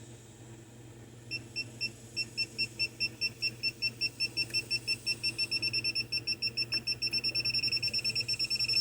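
Digital torque wrench beeping while a rocker shaft bolt is tightened to 30 lb-ft: the beeps start slow, come faster and faster as the set torque nears, and turn into one steady tone at the end, the signal that the target torque is reached.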